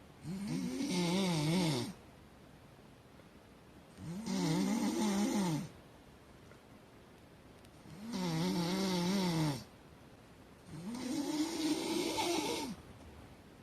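Loud snoring: four long snores about three to four seconds apart, each lasting one and a half to two seconds, with a wavering pitched buzz under a raspy hiss.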